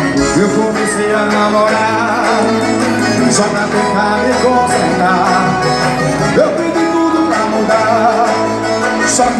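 A live band playing amplified music, a melody line over a bass line.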